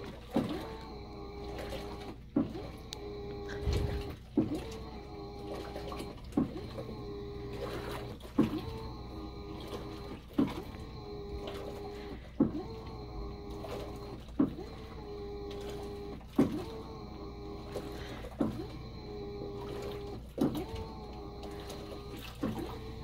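Washing machine agitating a tub full of water during its clean washer cycle: a knock followed by a steady motor whine, repeating about every two seconds.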